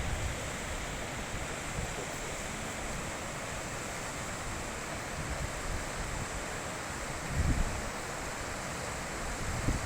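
High-mountain river rushing steadily over rocks, an even hiss of running water. About seven and a half seconds in, a brief low rumble of wind buffets the microphone.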